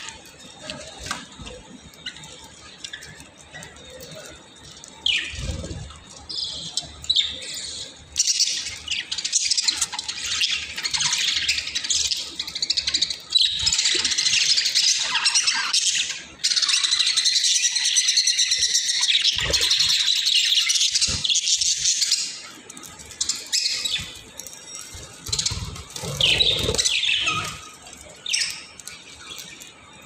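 A flock of budgerigars chattering: a dense run of rapid, high chirps that is loud and near-continuous through the middle, with quieter scattered calls before and after.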